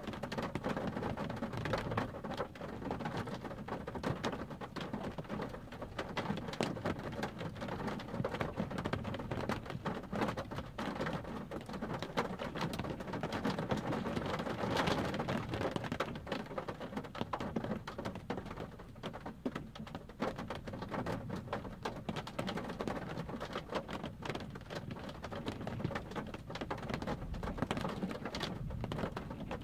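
Rain pattering on a car's windshield and roof, heard from inside the car as a steady hiss dense with small drop ticks, swelling about halfway through.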